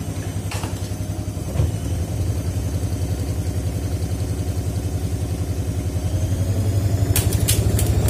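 Front-loading washing machine drum in its spin cycle with wet rags inside, giving a steady low motor-and-drum hum that pulses several times a second and grows a little louder toward the end. A few sharp clicks or knocks come through, about half a second in, at about one and a half seconds, and near the end.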